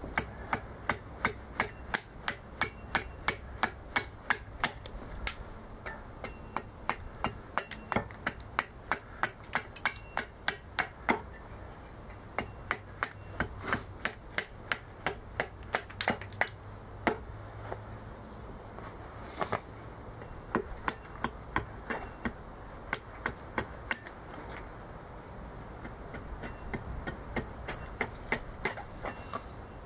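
Hatchet chopping a cherry plum spoon blank held on end against a wooden chopping block: sharp knocks, about three a second, in runs broken by short pauses.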